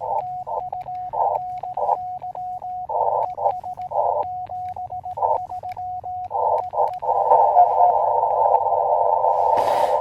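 Morse code from an Elecraft KX2 transceiver: a steady tone keyed on and off in dots and dashes, with band-noise hiss through the narrow CW filter rising in the gaps between elements. About seven seconds in the keying stops and only the steady receiver hiss is left. A sharp click comes near the end.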